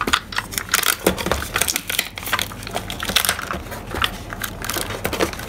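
Clear packing tape being pulled off a handheld tape-gun dispenser and pressed across a cardboard box to seal it: a run of irregular crackles and short rasps.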